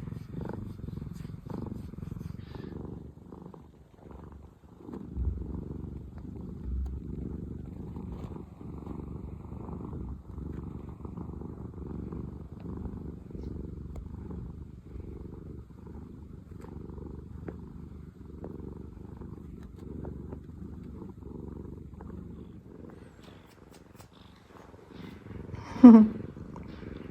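Domestic cat purring steadily up close: a continuous, rapidly pulsing low rumble that eases briefly a few seconds in and again near the end. About a second before the end, a short loud sound slides down in pitch.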